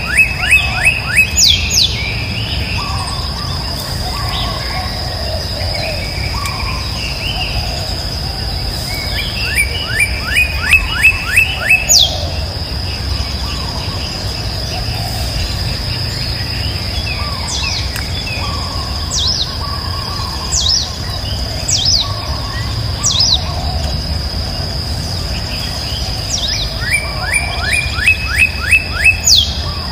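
A bird repeating a quick run of about eight sharp chirps three times, roughly every ten seconds, with single sliding calls in between, over a steady high-pitched insect drone.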